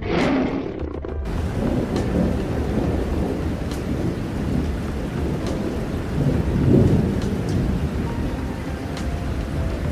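Thunderstorm: a sudden crack of thunder, then steady rain with deep rolling thunder that swells about seven seconds in.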